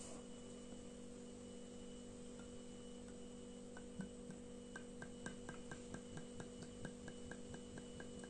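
Homemade rakija glugging faintly out of a narrow-necked glass bottle into a small drinking glass, about four quick glugs a second through the second half, over a steady electrical hum.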